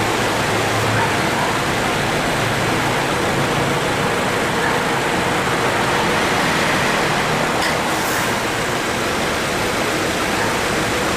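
Subaru XV 2.0 engine idling with the air-conditioning running and the cooling fan making a steady rushing noise. Its mildly worn A/C compressor makes an abnormal noise each time it kicks in.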